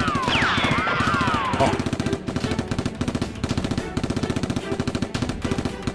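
Rapid automatic gunfire, a dense unbroken stream of shots in the manner of a dubbed-in machine-gun sound effect. High whistling tones swoop up and down over it in the first second or two.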